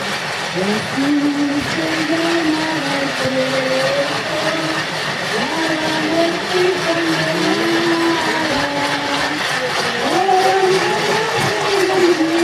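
Crowd singing a slow hymn in unison: long held notes that step up and down in pitch, with voices sliding up into some of them, over the murmur of many people.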